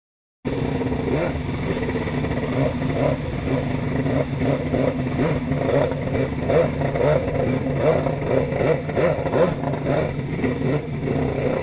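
Hurricane C3 stand-up jet ski's php1015 engine running hard on the water, its revs rising and falling. The sound cuts in suddenly about half a second in.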